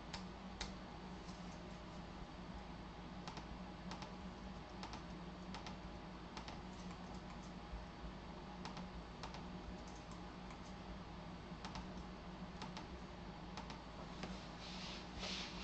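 Faint, irregular clicking of a computer keyboard being typed on, over a low steady hum.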